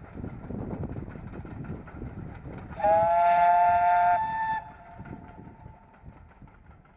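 GWR 2857, a 2-8-0 heavy freight steam locomotive, running with a train, its exhaust and wheels rumbling on the rails. About three seconds in, a steam whistle sounds for about a second and a half, a loud steady two-note blast with a slight rise at its start. Afterwards the train sound fades and gets quieter.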